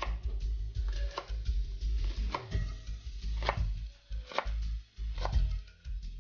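Chef's knife slicing green onions on a plastic cutting board, each stroke knocking on the board about once a second, over soft background music.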